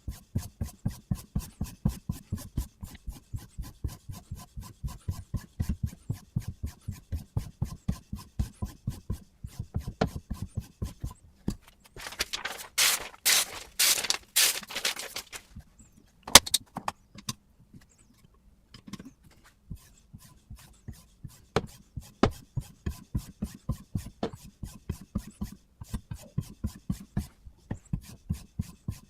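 Sharpening stone on a guided angle-control sharpener rubbed in quick, even back-and-forth strokes along a kitchen knife blade, several strokes a second. Around the middle comes a louder, harsher run of strokes, then a short pause with a few clicks before the steady stroking resumes.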